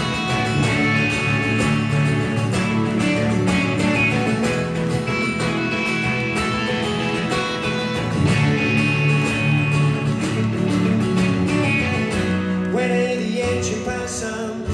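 Rock band playing live in a concert hall, heard from the audience: acoustic guitar strumming over drums, bass and keyboards in a steady instrumental passage. About twelve seconds in, the low end drops away and the playing thins out.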